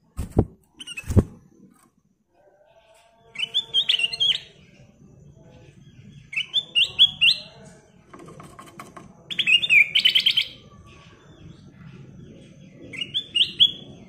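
Caged ruby-throated bulbul (kutilang emas) singing four short phrases of bright, quick up-and-down whistled notes, about every three seconds. Two sharp thumps near the start as the bird moves about the cage.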